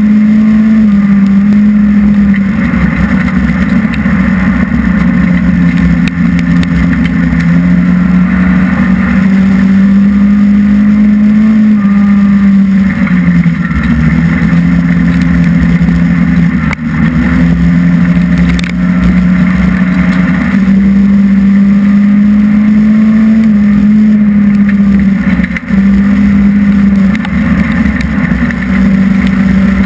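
Hobby stock race car's engine heard from inside the cockpit, running hard and loud. Its pitch steps up and down with the throttle, and the sound dips briefly twice.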